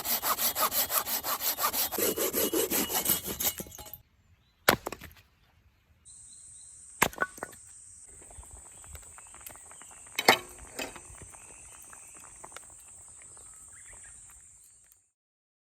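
Folding pruning saw cutting through wood with fast, even strokes for about four seconds. After a short break come a few sharp wooden knocks over a steady high hiss.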